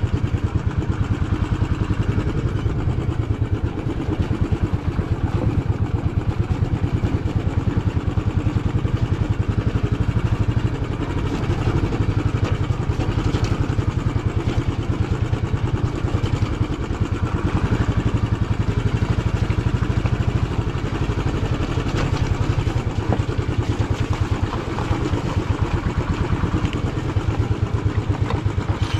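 Motorcycle engine running steadily while the bike is ridden, with an even, rapid beat of firing pulses.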